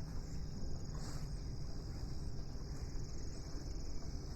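A steady chorus of crickets and other insects trilling in a high band, with a low rumble underneath.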